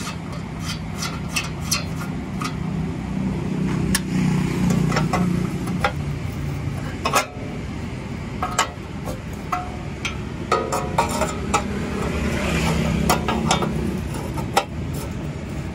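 Small spanner working a rusty bolt on a metal number plate, with irregular sharp metallic clicks and taps as it slips and knocks against the plate, over a steady low engine hum.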